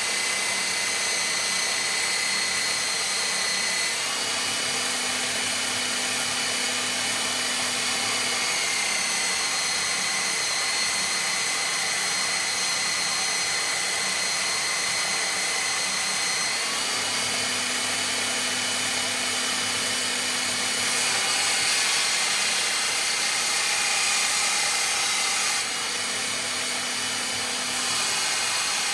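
Einhell TC-BS 8038 800-watt belt sander running continuously while a 3 mm steel blank is held against the abrasive belt to grind an edge. The belt rushes steadily under a motor whine that steps up and down in pitch every few seconds.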